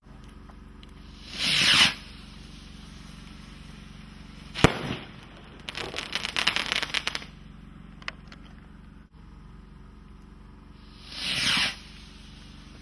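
Skyrockets being fired: a rocket launches with a short rushing whoosh, bursts about three seconds later with a sharp bang, and a second or so of dense crackling follows. A second rocket launches with the same whoosh near the end.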